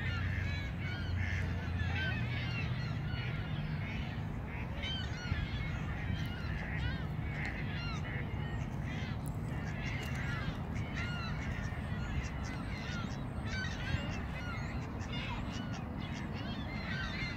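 A flock of Canada geese and other waterfowl calling: many short, overlapping honks throughout, over a steady low rumble.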